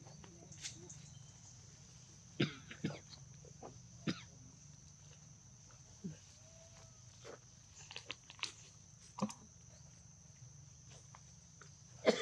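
Forest ambience: a steady high-pitched insect drone, broken by scattered short snaps and knocks, the loudest about two and a half and four seconds in.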